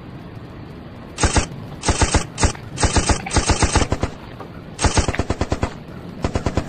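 Machine-gun fire sound effect in about five rapid bursts, each a quick run of sharp shots, laid over a cat's chattering at something outside a window.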